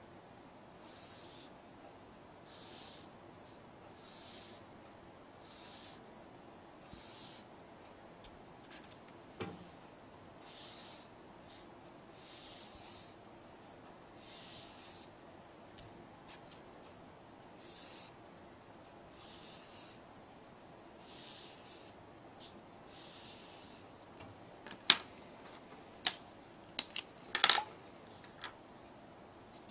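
Pen or pencil scratching across paper in a steady series of short strokes, roughly one every second and a half, as figures are written out by hand. Near the end come several sharp clicks and taps.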